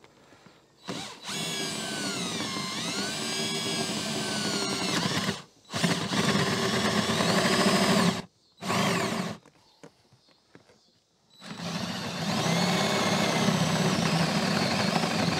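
Power drill boring a hole with a 1¼-inch bit, running in four stretches with short pauses between them. The motor whine dips in pitch as the bit bites under load and rises again as it frees up.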